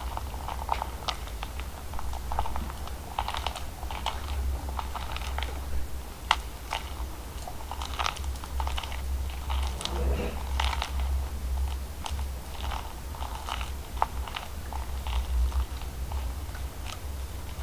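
Slime being squeezed and poked by hand, giving an irregular run of small sticky clicks and crackles, over a steady low hum.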